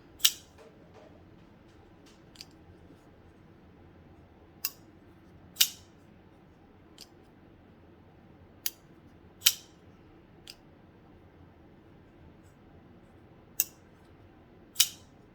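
Kubey Nova folding knife being flicked open and snapped shut: about ten sharp metallic clicks spaced a second or more apart, several in pairs, as the blade deploys and locks, then closes.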